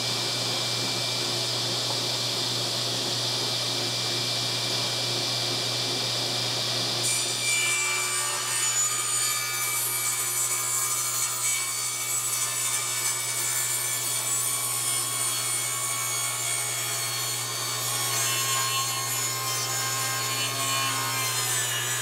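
10-inch table saw running steadily. From about seven seconds in, its blade cuts into a pine 2x4 being fed slowly along the fence.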